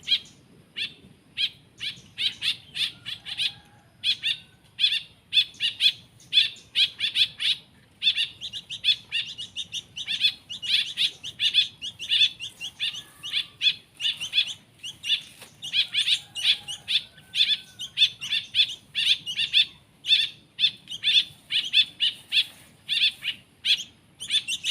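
Young songbird chicks chirping rapidly and repeatedly, about three to four sharp chirps a second with brief pauses: the begging calls of hand-reared nestlings.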